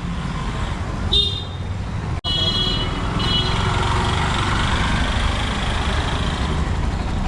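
Road traffic rumble with high-pitched vehicle horns honking: one short honk about a second in, then a longer honk in two parts a little past two seconds in.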